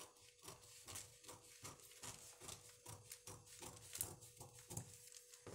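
Scissors snipping through folded newspaper while cutting out a paper blouse pattern: a steady run of short, faint cuts, about three to four a second.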